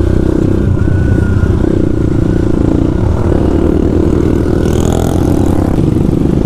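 Motorcycle engine running steadily while riding along a rough off-road track, with a brief hiss about five seconds in.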